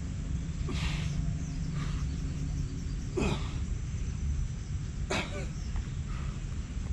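A man's sharp, forceful exhalations, three in all about two seconds apart, in time with resistance-band shoulder press reps. A steady low rumble runs underneath.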